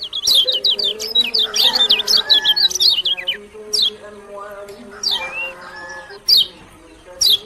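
Kecial kuning (yellow white-eye) singing: a fast run of high, downward-sweeping chirps for the first three seconds or so, then single sharp high notes about a second apart.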